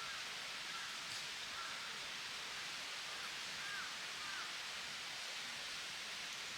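Faint short chirps of a small bird, about six in the first four and a half seconds, over a steady hiss.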